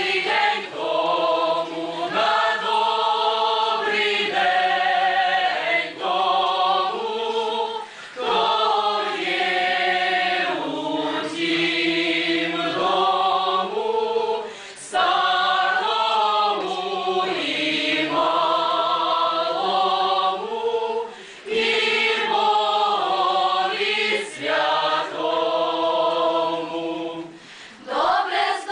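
Mixed choir of young female and male voices singing a Ukrainian folk wedding song unaccompanied, in short phrases with brief pauses for breath between them.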